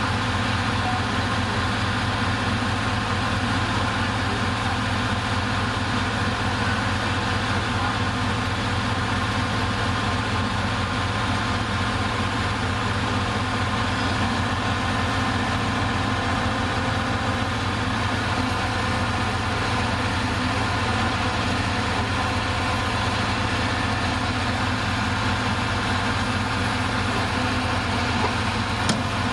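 Bulldozer's diesel engine idling steadily, with a fast, even low throb.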